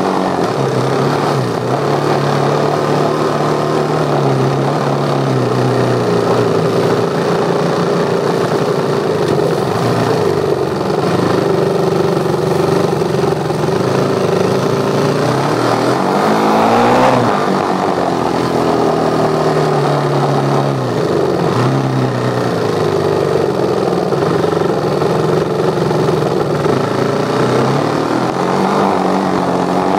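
Dirt bike engine running under way, its revs rising and falling as the rider works the throttle, with a sharp climb in revs about halfway through and another near the end.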